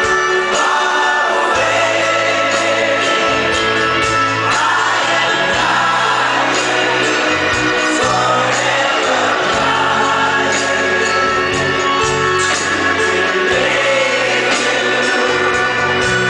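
Live band music: a male lead vocal with a group of backing singers over bass, drums, guitar and violin, heard from the audience.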